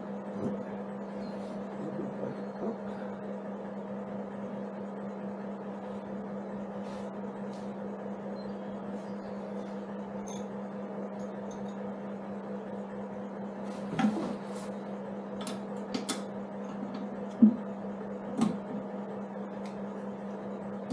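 Steady low electrical hum throughout, with a few sharp clicks and knocks of hand tools on metal in the second half as a toolbox bracket is fastened to a motorcycle's pannier frame; the loudest knock comes about two-thirds of the way in.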